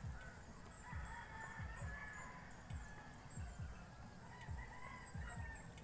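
Roosters crowing, several drawn-out calls of about a second each, with faint high chirps of small birds and a low rumble underneath.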